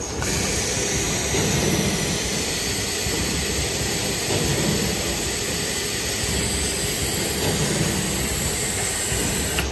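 Steady rushing hiss of running factory machinery, even and unbroken, with no distinct strokes or rhythm.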